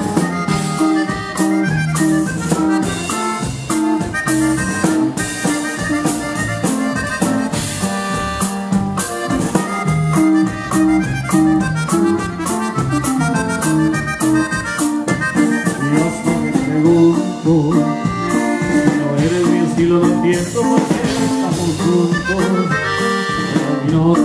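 Norteño band playing live: an instrumental passage with an accordion melody over a steady drum-kit beat, between sung verses.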